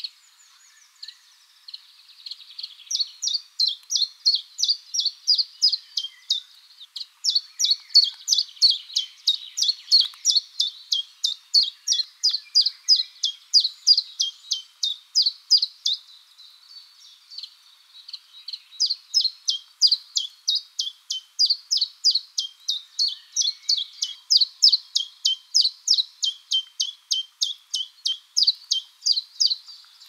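Common chiffchaff singing: long runs of sharp, evenly spaced 'chiff-chaff' notes at about three a second, broken by a pause of about two seconds a little past the middle.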